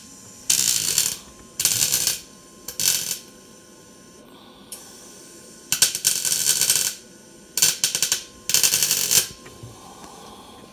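MIG welder arc crackling in six short bursts of half a second to a second each, with pauses between, as 1 mm stainless wire is fed into the cracked stainless-steel bellows of a ship's diesel exhaust compensator under an argon–CO2 shielding gas. The short bursts are tacks stitching the crack closed.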